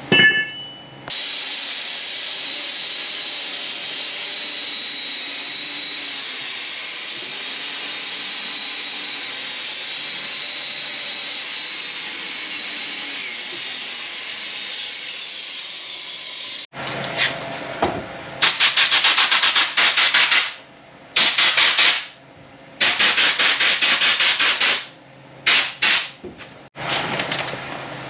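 A power tool running in several bursts of a few seconds each, starting and stopping, after a long steady hiss.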